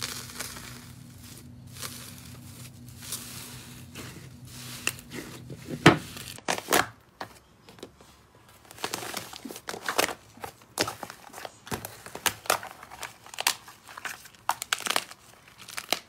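Slime ASMR handling sounds. First, fingers press into foil-wrapped slime, giving faint crinkling over a low steady hum. Then, about six seconds in, hands press and tear a cracked green crust over blue slime, giving many sharp, irregular crackling and tearing sounds.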